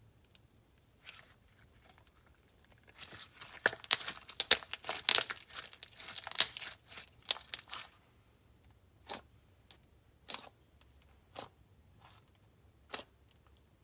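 Crunchy slime full of fishbowl beads being squeezed and worked by hand: a dense run of crackling and popping for several seconds, then single sharp pops about a second or so apart.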